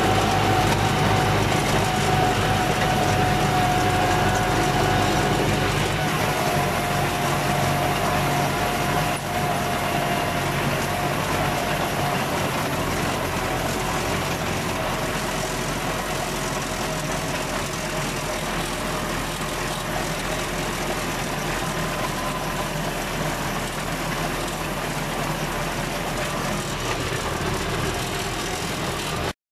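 Farm tractor engine running steadily while raking hay, with a steady whine above the engine sound that sinks slightly in pitch.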